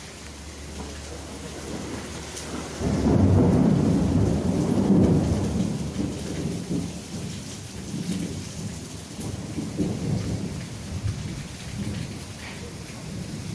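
Heavy rain falling steadily, with a long roll of thunder that swells about three seconds in and rumbles away over several seconds.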